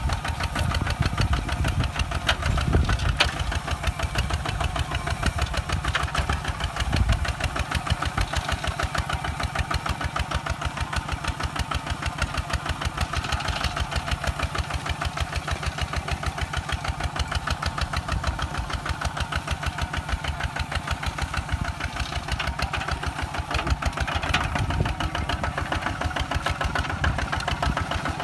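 Kubota ZT 155 DI single-cylinder diesel engine on a walk-behind tractor running with an even, rapid beat under load as it pulls a disc plough through the soil.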